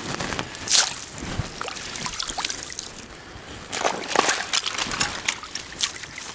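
Shallow creek water sloshing and splashing as gloved hands work in it, with irregular louder splashes about a second in and again around four seconds.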